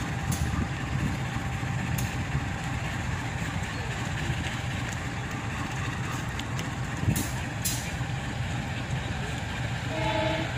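Steady low rumble of outdoor background noise beside the railway tracks, with no train passing. About ten seconds in, a short pitched tone sounds briefly.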